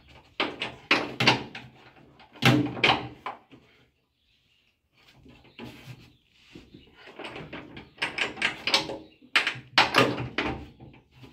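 Metal clicks and knocks of a socket wrench on a seized seatbelt anchor bolt in a VW Kombi's body, coming in several quick bursts with a short pause about four seconds in.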